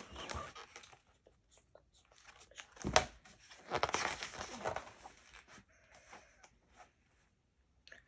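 Paper pages of a large picture book being turned and flipped, rustling in bursts, with one sharp snap of paper about three seconds in.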